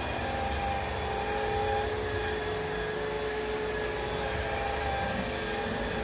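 ILIFE W90 wet/dry hard-floor vacuum running steadily while being pushed across a wet wooden floor: an even motor hum and whine with a few steady tones over a rushing noise.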